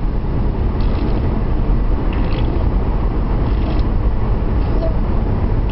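Mouth-made fart noises: a person blowing raspberries through the lips in short rattly buzzes, over a steady low rumble.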